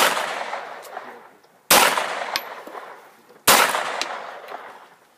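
Ekol Firat Compact traumatic pistol firing slow, aimed shots: one right at the start and two more about 1.8 seconds apart. Each sharp crack is followed by a long echo that fades away over the open field.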